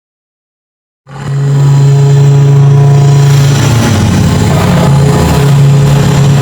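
Made-up kaiju roar sound effect for Yakkarax, a pachyrhinosaurus-like monster: after about a second of silence, one loud, long roar with a steady low pitch.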